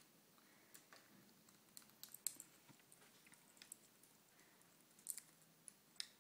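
Irregular small sharp clicks and crunches, the loudest about two seconds in, from a ringneck parakeet's beak working at a treat.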